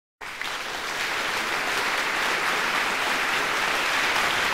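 Audience applauding: the clapping starts suddenly, builds over the first second and then holds steady.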